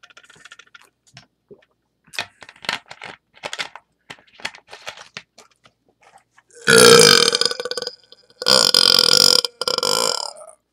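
A man gulping carbonated soda in short, irregular swallows, then two long, loud burps from the fizz: one about seven seconds in, and another about a second later that breaks briefly before trailing on.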